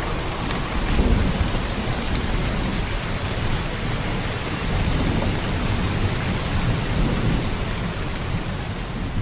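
Steady heavy rain with low rolls of thunder that swell and fade every few seconds, from a rain-and-thunder ambience track.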